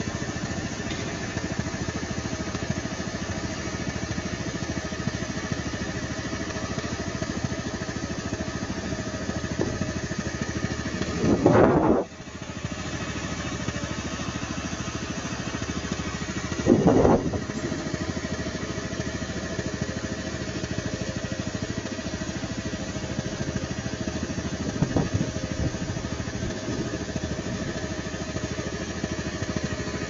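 A motorcycle engine running steadily while riding, with two brief louder rushes of noise about eleven and seventeen seconds in.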